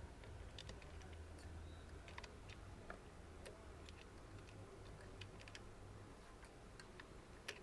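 Faint, scattered small clicks and ticks of computer parts being handled, over a low hum that fades about a second in.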